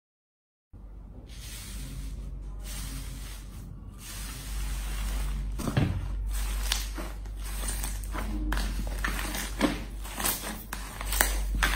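Slime being handled by hand: a soft hissy rustle that starts suddenly just under a second in, then from about halfway through a growing run of sharp sticky crackles and pops.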